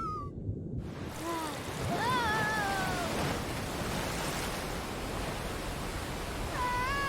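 Cartoon soundtrack effects: a steady rushing hiss, with a short pitched cry that rises and then falls about two seconds in, and a second, longer one that holds and then falls near the end.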